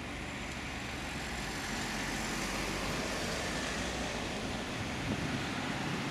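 Steady road traffic noise, growing a little louder about a second in and then holding.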